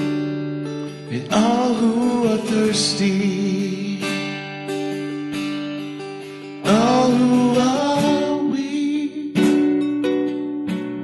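Music: strummed acoustic guitar with a voice singing, in phrases that start about a second in and again past the middle.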